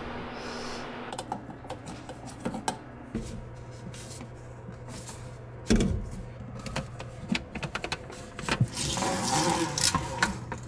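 White plastic sink drain pipes being fitted by hand under a bathroom vanity: scattered plastic clicks and knocks, with one louder knock about six seconds in, over a low steady hum.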